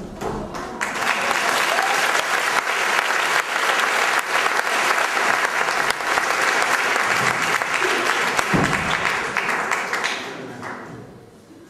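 Theatre audience applauding, swelling about a second in and dying away near the end.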